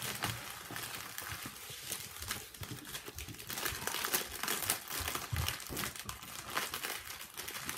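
Small plastic bags of diamond-painting drills crinkling as hands handle and shuffle them, an irregular crackle.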